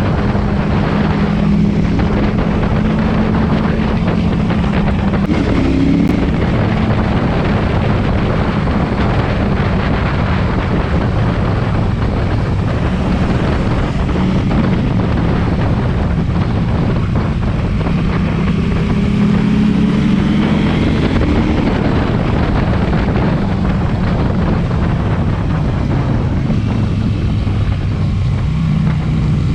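KTM 790 Duke's parallel-twin engine running through an SC-Project exhaust while riding, its note rising and falling with the throttle and climbing in pitch near the two-thirds mark, with wind rushing over the microphone.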